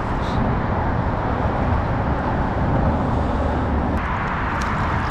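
Steady low rumbling noise without a clear pitch, with a few light clicks about four seconds in.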